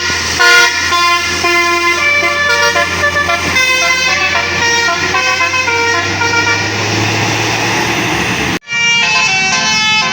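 Indonesian bus telolet horn (Basuri multi-tone horn) playing a tune: several horn notes at once, changing in quick steps, over a low engine hum. The sound cuts out abruptly for a moment near the end, then the horn tune resumes.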